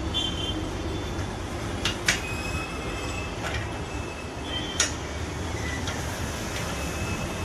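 A hand wrench working bolts on a scooter engine's cylinder head, giving a few sharp metal clicks and faint squeaks over a steady low hum.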